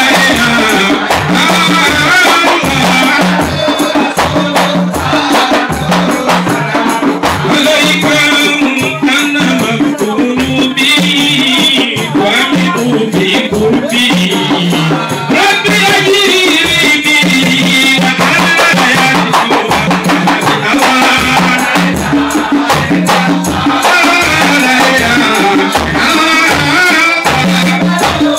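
Large hand-held frame drums beaten by hand in a steady rhythm, with a rattle shaking along, while a man sings a devotional song through a microphone.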